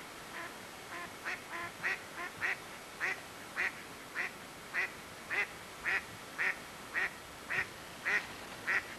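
A duck quacking over and over in a steady rhythm, nearly two quacks a second.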